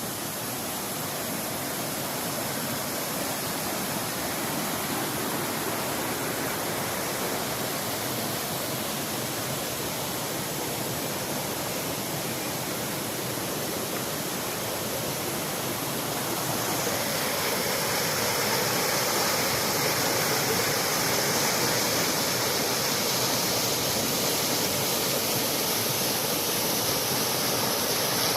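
Steady rushing noise of running water, growing louder and brighter about seventeen seconds in.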